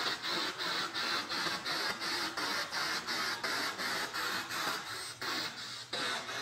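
SB7 spirit box sweeping rapidly through radio stations: a steady stream of radio static chopped into short bursts about four times a second.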